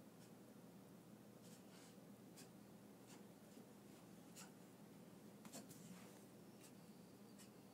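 Near silence: room tone with faint, irregular soft ticks, roughly one every half second to a second.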